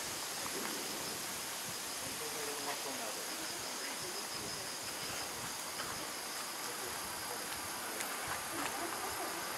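A steady, high-pitched chorus of night insects chirping.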